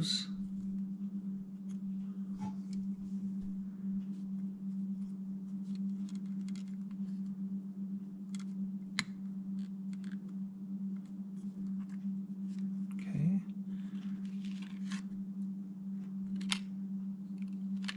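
Light clicks and taps of small plastic and rubber parts being handled and pressed into a plastic LCD housing, over a steady low hum.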